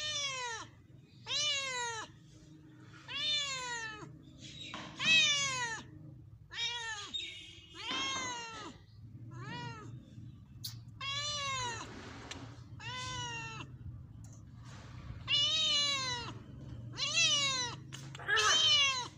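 Domestic cat meowing repeatedly, about a dozen calls one to two seconds apart, each rising then falling in pitch.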